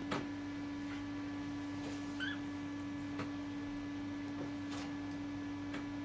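Budgerigars preening: a few faint, scattered clicks and one short soft chirp about two seconds in, over a steady low electrical hum.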